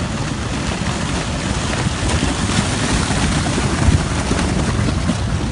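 A loud, steady rushing noise of fast-moving floodwater with wind, and a brief louder gust or surge about four seconds in.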